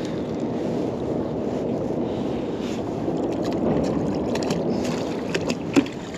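Wind buffeting the microphone as a steady low rumble, with light clicks and rustles in the second half as a magnet-fishing rope is hauled in hand over hand, and one sharp knock near the end.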